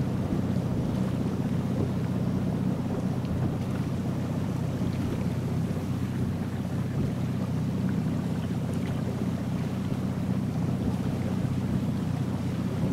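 Motorboat engine running steadily at cruising speed, a constant low drone with even pitch, over the rush of water along the moving hull.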